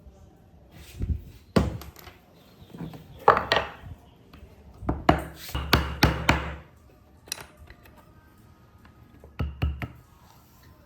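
Irregular knocks, thuds and clatter of wood and tools being handled, coming in four loose bursts, the busiest a run of quick strikes about five to six and a half seconds in.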